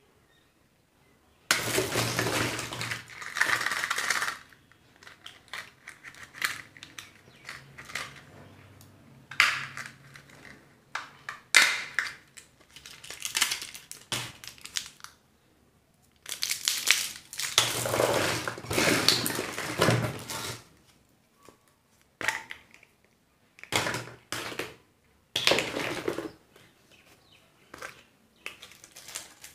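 Surprise-egg and candy packaging being unwrapped by hand: repeated bursts of foil and plastic wrapper crinkling, the longest about four seconds, with scattered small clicks and taps of plastic between them.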